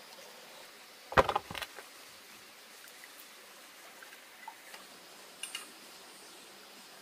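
A short clatter of several sharp knocks about a second in, then a few faint clicks, over a faint steady hiss.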